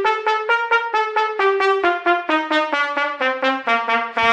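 Trumpet playing a quick run of short detached notes, about four a second, stepping up and down in pitch and ending on a longer low note. Each note is started by a push of breath rather than the tongue, in a breath-attack exercise for building the trumpet sound.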